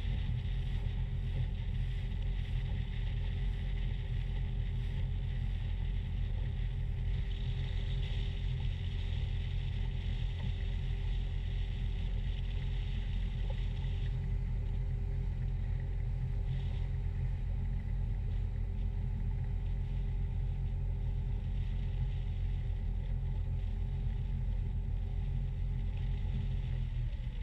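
Motor cruiser's engine running steadily under way, a low drone with a rushing hiss of water and wind over the hull. Near the end the engine note drops as the boat slows.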